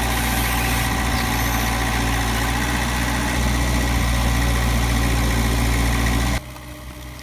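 Heavy machine's engine running steadily at a constant speed. It cuts off abruptly about six seconds in, leaving a much quieter low hum.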